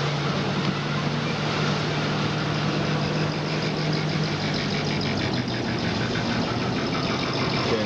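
Inside a moving pickup truck's cab: steady road noise with a low engine hum that fades about halfway through, the tyres running on a wet road.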